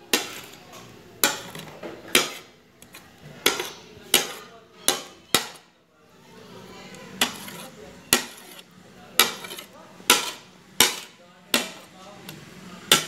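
A metal spoon clinking against a bowl while chopped greens are stirred, giving about fifteen sharp knocks at roughly one a second, with a short pause about six seconds in.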